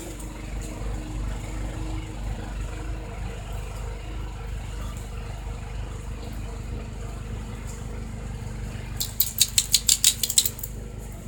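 Small snowblower engine running steadily at idle. Near the end, a quick run of about eight sharp clicks.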